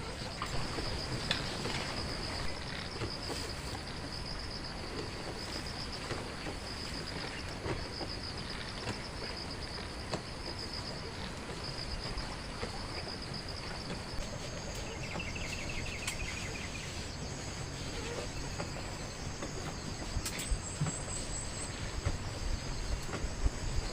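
Insects trilling in rapid repeated pulses over steady outdoor background noise, with a second, shorter trill joining about fifteen seconds in.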